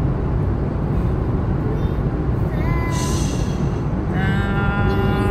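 Steady road and engine rumble heard from inside a car's cabin while driving through a highway tunnel. Short high-pitched sounds lie over it: a brief one about two and a half seconds in and a longer held one near the end.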